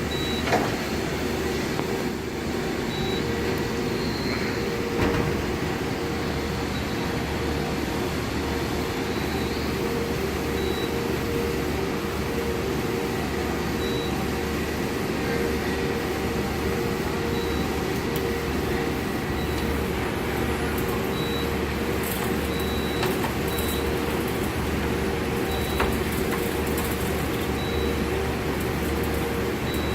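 Steady mechanical hum of a CNC lathe running under power, with a constant mid-pitched tone, short faint high pips now and then, and a couple of light knocks.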